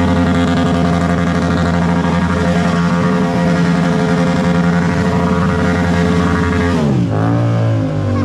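Motorcycle engine held at steady revs, then the revs fall away about seven seconds in.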